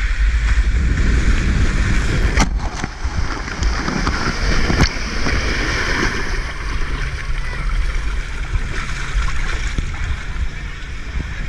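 A rider on a foam mat sliding down a kamikaze water slide, with water rushing and spraying around the mat and a heavy rumble of water and wind close at the rider. Two sharp knocks sound about two and a half and five seconds in.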